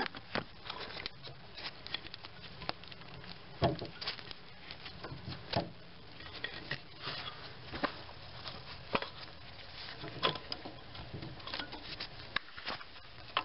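Irregular small clicks, taps and rubbing of gloved hands handling plastic and metal parts in an engine bay, as the MAP sensor's electrical connector is worked loose and unplugged, with a few louder knocks among them.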